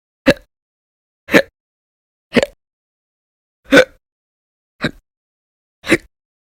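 A woman hiccuping six times, one short, sharp, voiced hic roughly every second, each with a quick catch of the throat.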